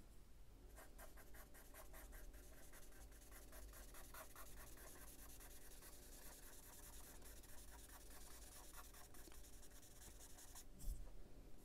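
Faint scratching of a charcoal pencil on drawing paper in quick, repeated short shading strokes. A soft knock near the end.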